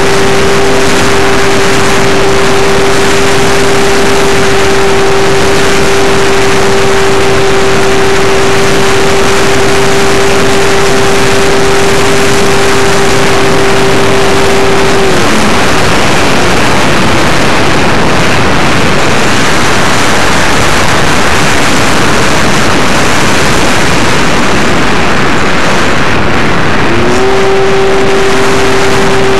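Electric motor and propeller of an Apprentice S15e RC trainer plane, heard from its onboard camera as a steady whine under loud wind rush on the microphone. About halfway the motor whine cuts out, leaving only the wind noise of the glide, and it comes back on near the end as the throttle is opened again.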